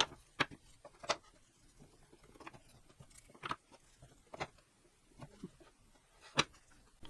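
Scattered light clicks and taps, about ten over several seconds, from small wooden pieces being handled and set down on a workbench.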